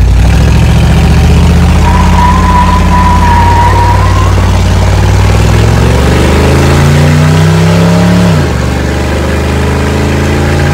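Square-body Chevy pickup's engine running loud through an open header on the passenger side, where the exhaust has fallen off the header. It climbs in pitch as the truck accelerates, then drops sharply about eight seconds in.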